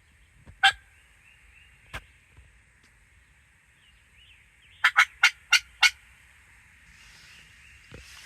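Turkey yelping: a sharp single note, another a little over a second later, then a quick run of five yelps in about a second. Faint songbird chirps underneath.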